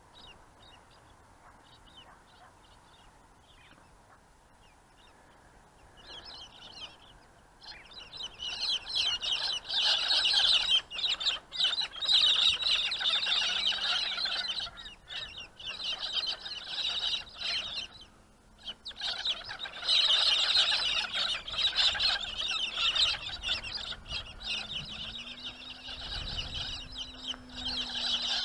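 A flock of birds calling in a dense, continuous chatter, starting a few seconds in and dipping briefly twice. A faint steady hum rises in pitch near the end.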